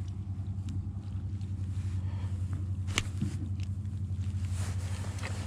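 Steady low electric hum of a Motorguide Xi3 trolling motor running on the kayak, with one sharp click about three seconds in.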